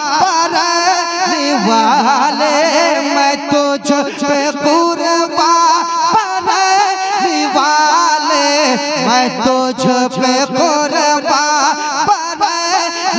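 A male voice sings a naat melody in long, wavering, drawn-out notes, with no clear words.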